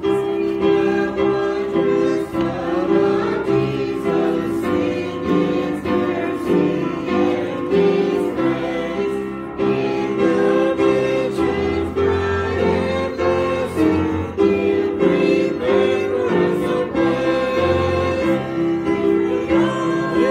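A church congregation singing a hymn together, many voices holding long sung notes.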